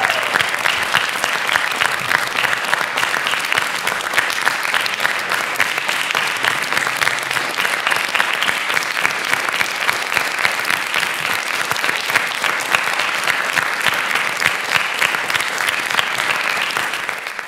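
Theatre audience applauding the cast at the curtain call: dense, steady clapping that dies away at the end.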